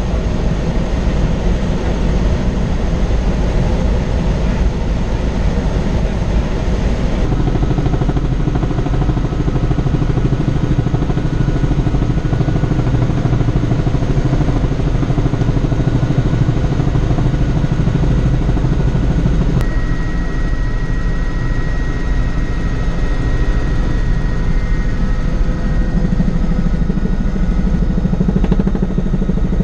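Helicopter in flight heard from inside the cabin: a loud, steady drone of rotor and engine. About twenty seconds in, a thin high tone comes in and holds over the drone.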